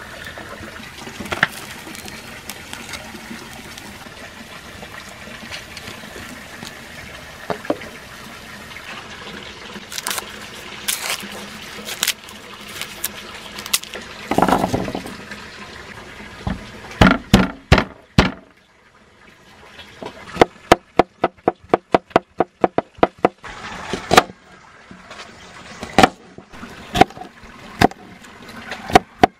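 Fish frying in oil in a wok, sizzling steadily, with occasional knocks of a wooden spatula. After about fifteen seconds it gives way to a kitchen knife chopping red onion on a bamboo cutting board: quick strokes of about four a second, then slower.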